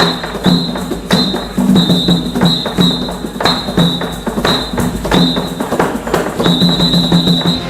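Background trailer music: sharp percussion hits roughly every half second over low held notes, with a high thin tone sounding in short repeated phrases.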